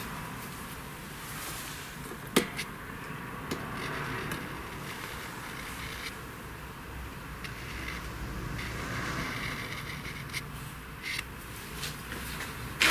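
Small workbench handling sounds: a felt-tip marker rubbed along a brass blank held in a bench vise, with one sharp click about two and a half seconds in and a few light knocks near the end.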